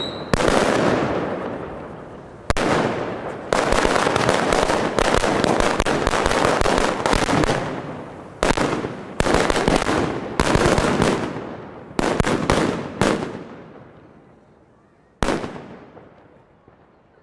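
A series of about twenty loud firework bangs at ground level, each one echoing and fading. They come close together through the middle and thin out towards the end.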